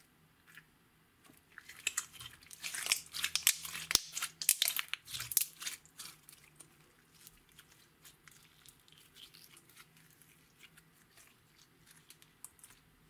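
Glittery clear slime, tinted neon purple, squeezed and folded by hand: a dense run of wet crackles and pops from about a second and a half in until about six seconds, then sparser clicks.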